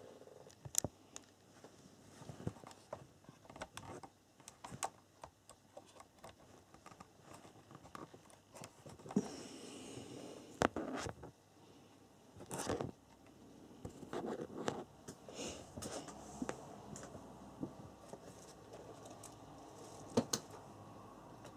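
Handling noise: irregular clicks, taps and rustling as charging leads with XT60-type plugs are moved and plugged into a battery charger, with a few sharper clicks standing out.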